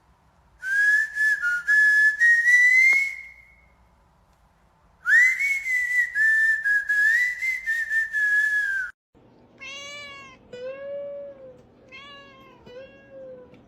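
Two long, high, held whistled notes, each rising slightly, then a cat meowing four times in quick succession.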